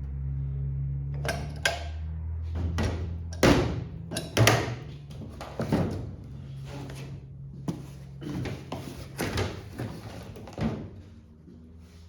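Metal parts of a brake pedal assembly being handled and set down on a bench: about a dozen separate clanks and clinks, irregularly spaced, over a steady low hum.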